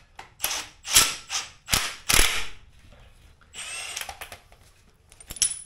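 Metal coil spring compressors being handled: several sharp clanks and clicks in the first couple of seconds, a short scraping rattle about four seconds in, and a few more clicks near the end.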